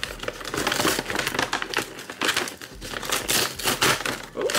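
Brown kraft-paper takeout bag crinkling and rustling in irregular bursts as its folded top is pulled open by hand.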